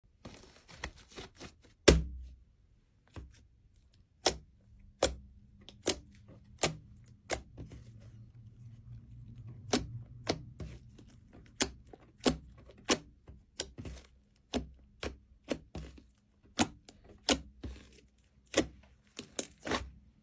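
Slime made with slime activator being squeezed and poked with the fingers, giving a string of sharp clicks and pops at about one or two a second, the loudest about two seconds in, as trapped air pops out of the slime.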